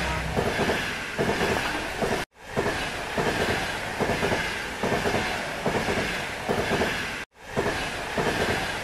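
Train running along the track, its wheels clicking in a regular clickety-clack over the rail joints with a faint squeal. The sound cuts out suddenly twice, about two seconds in and near the end, and fades back in each time.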